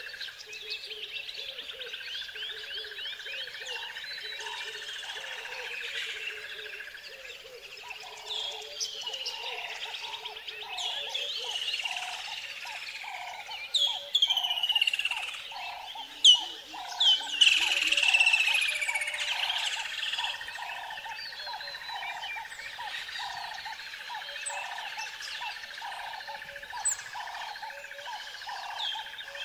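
A chorus of birds chirping and whistling, with quick falling whistled calls that are loudest around the middle. Underneath runs a steady high hum and a softer call repeated about three times every two seconds.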